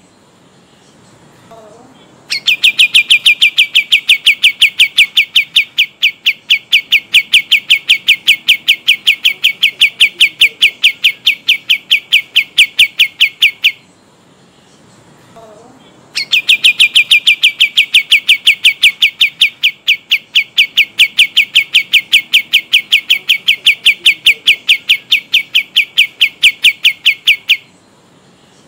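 Kapas tembak songbird from Kalimantan singing a long rolling trill of sharp, evenly repeated notes, about five a second. It sings two runs of about eleven seconds each, with a pause of about two seconds between them.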